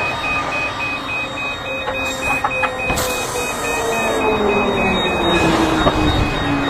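Airliner noise on the apron: a steady rushing noise, a whine that falls slowly in pitch over several seconds like an engine winding down, and a rapid electronic beeping.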